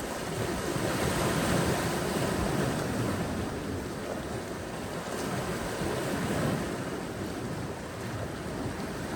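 Ocean waves washing onto a beach, a steady surging wash that swells and eases gently, with some wind rumble on the microphone.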